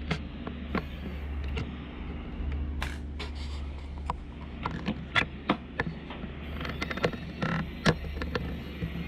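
Electric screwdriver whirring in short runs as it backs out the laptop's bottom-panel screws, with clicks and taps of the tool and small screws in between.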